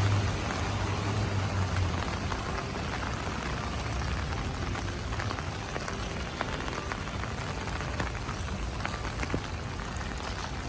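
Heavy rain falling steadily, with many separate drop hits. A low hum fades out in the first two seconds.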